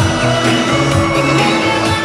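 Loud parade soundtrack music with a moving bass line and sustained pitched notes, playing from the passing illuminated floats.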